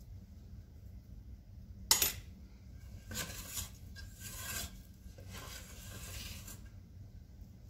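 A big metal spoon knocks once sharply against a stainless steel saucepan about two seconds in, then scrapes around inside the pot in several strokes, digging out the thick cooked date-roll candy.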